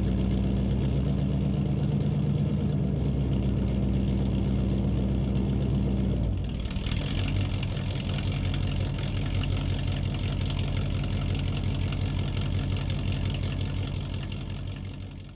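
Car engine idling with a steady low note; about six seconds in the sound changes and turns noisier, then fades out near the end.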